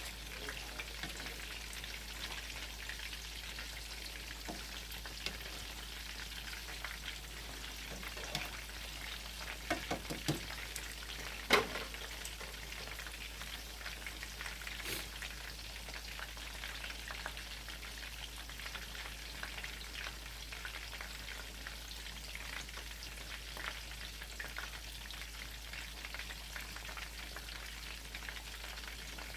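Chicken tenderloin cutlets frying in a pan, a steady sizzle with crackling pops; the sizzle is still lively, the sign that the chicken is still cooking and not yet ready to come out. A few knocks around ten seconds in and one sharp click shortly after.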